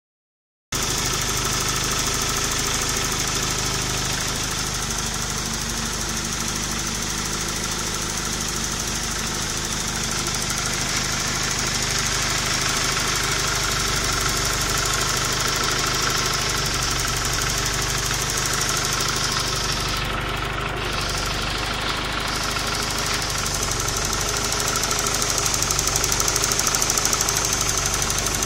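Vehicle engine running steadily at idle, getting a little louder near the end.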